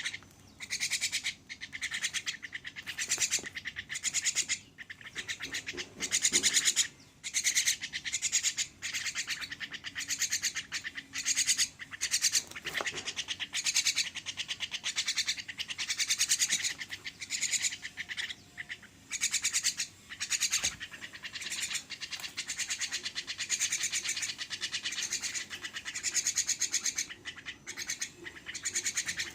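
Javan myna calling while being fed: harsh, buzzy calls repeated in bouts about a second long with short gaps between them.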